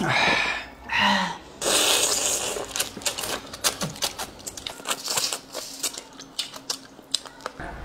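Close eating sounds of crayfish being eaten by hand: many quick, sharp clicks and crackles of shells being cracked and pulled apart, with slurping and sucking at the meat.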